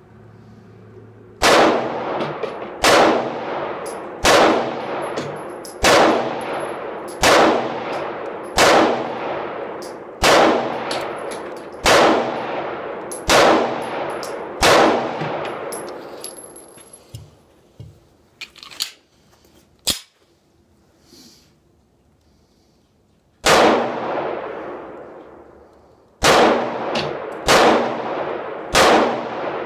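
SCCY CPX-2 9mm pistol firing single shots, about one every second and a half, each echoing and dying away under the range's roof. Ten shots come first, then a break of several seconds with a few light clacks of a magazine change, then four more shots. The pistol cycles without a stoppage on brass-cased ammunition.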